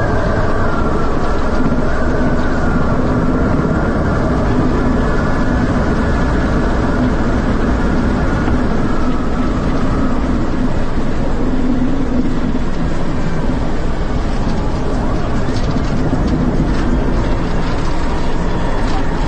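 Helicopter in low-level flight heard from inside the cabin through an open door: the engines and rotor run at a steady drone, with a steady high whine over it.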